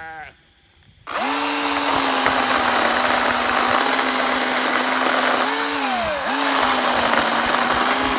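Ryobi ONE+ 18-volt brushless cordless chainsaw starting up about a second in and running at full speed with a steady electric whine and chain hiss. Past the middle its speed briefly sags and then picks back up.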